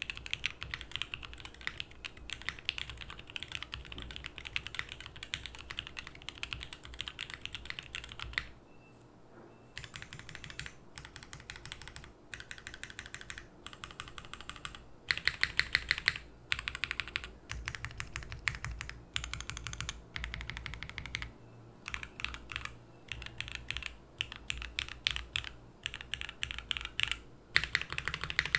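Fast typing on a Unikorn R2.1 mechanical keyboard with lubed H1 switches in Cherry top housings, an aluminum plate and GMK keycaps. Rapid, steady keystrokes run for the first eight seconds or so, then stop for about a second. After that the typing comes in bursts with short gaps between them.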